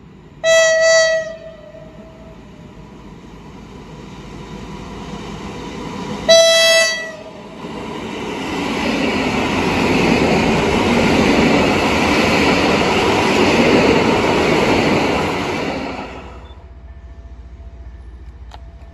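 A coupled pair of EN57AKM electric multiple units sounds its horn twice at one pitch, short blasts about six seconds apart. It then runs along the platform with a rising rush of wheels and running gear that stays loud for several seconds and drops away suddenly.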